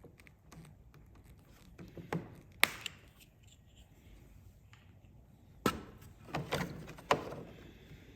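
A few sharp clicks and knocks from hands working the snowmobile's plastic trim panels and wiring clips. The loudest click comes about two and a half seconds in, and a quicker cluster of knocks follows near six to seven seconds.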